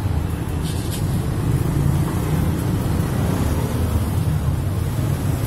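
Steady low rumble of road traffic, with no sudden events standing out.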